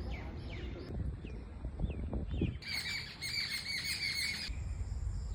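Songbirds chirping: faint falling chirps at first, then, about halfway in, a quick series of about six repeated chirps for roughly two seconds, over a low rumble.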